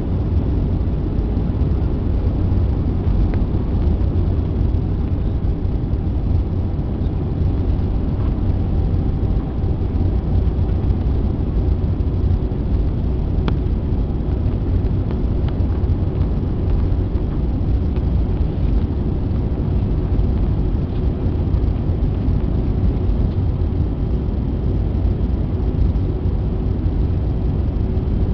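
Jet airliner cabin noise at a window seat beside the turbofan engine: a steady low rumble of engine and airflow, with a faint steady hum above it.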